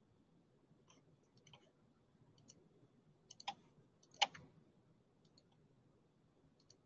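Computer mouse clicking: a few scattered faint clicks, the loudest about four seconds in.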